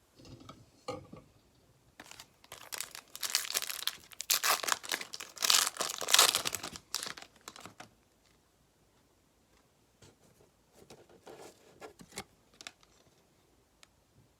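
A baseball card pack's wrapper being torn open and crinkled: a run of dense crackling and tearing that grows loudest about halfway through, followed by a few fainter rustles near the end.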